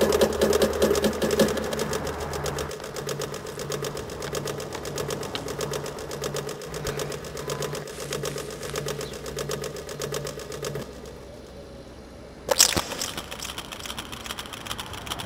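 Experimental electronic music: a fast, even stream of clicks over a held mid tone and a low note pulsing on and off about once a second. About eleven seconds in the clicking and pulsing drop away, and a sharp hit follows a moment later.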